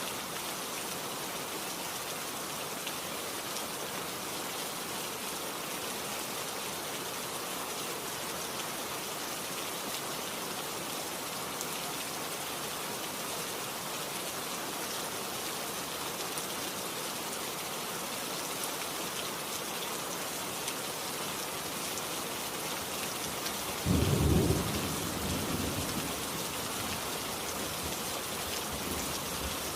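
Steady rain falling. Late on, a sudden clap of thunder that rumbles away over a couple of seconds.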